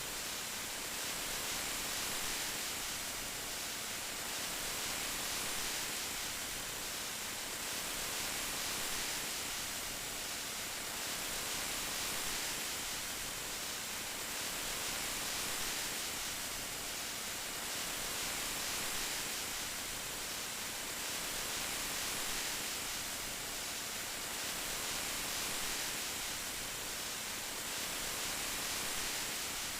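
Steady hiss of heavy rain, a dense even wash that swells and eases gently every two to three seconds.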